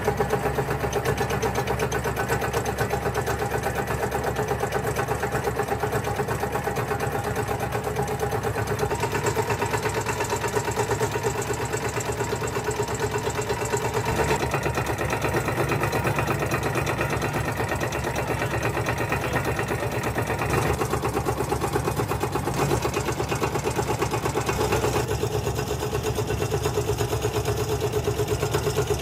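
Mechanical die press punching ice cream sticks from wooden veneer sheets, running steadily with a fast, even clatter of strokes.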